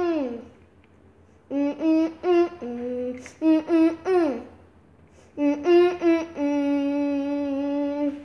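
A girl humming a slow tune in two phrases of held notes, the first ending in a downward slide in pitch.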